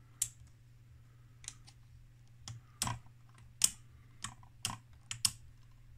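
Rotary range selector switch on an electronic wattmeter clicking through its detents, about ten irregular clicks as the knob is turned step by step. A steady low hum runs underneath.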